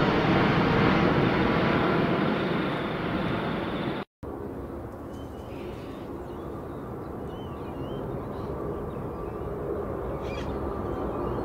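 Airbus A380 jet engines at takeoff thrust as the airliner climbs away, a loud, steady rush of engine noise. After an abrupt cut about four seconds in, a second A380's engine noise starts quieter and builds steadily as it rolls for takeoff, with a few bird chirps over it.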